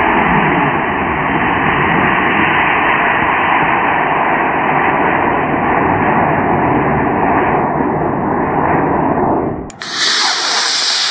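Model rocket motor burning: a loud, steady rushing hiss of exhaust as the rocket lifts off the pad and climbs. About ten seconds in, it switches abruptly to a brighter hiss of another motor firing on the pad.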